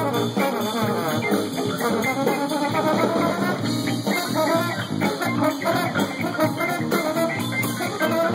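Live band music played through a stage PA: electric guitar to the fore over bass and drums, with the trombone joining in.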